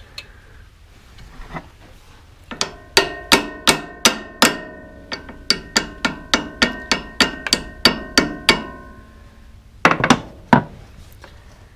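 Hammer tapping a wood chipper's inner pulley hub back along its shaft: a run of about twenty light, evenly spaced strikes, about three a second, each leaving a metallic ring, then a couple more strikes near the end.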